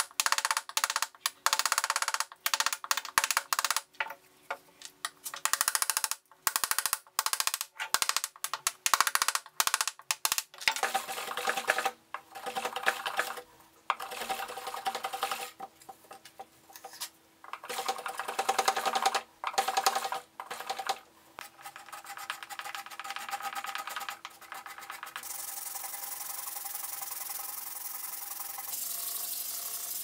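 A carving gouge cutting into basswood in many short, quick scraping strokes with brief pauses between them. These give way to longer scraping strokes, and from about 25 seconds in to a steady, even hiss of hand sanding with sandpaper on the wood.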